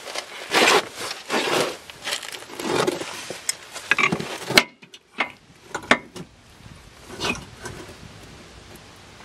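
Irregular scraping, rustling and clunking of metal suspension parts being handled and fitted by hand, with a sharp knock about halfway through, then only light scattered clicks.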